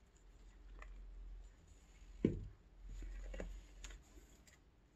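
Quiet handling noise: a low rumble in two stretches, one sharp knock about two seconds in, and a few light ticks.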